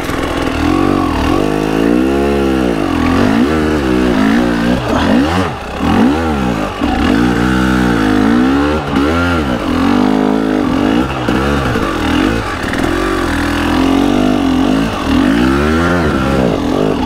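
KTM EXC 300 TPI two-stroke single-cylinder enduro engine being ridden hard, the revs rising and falling again and again as the throttle is opened and closed.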